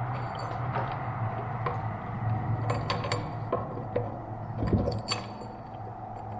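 Scattered light clicks and clinks of small hard parts being handled during assembly, about eight in all, the loudest about five seconds in, over a steady low hum.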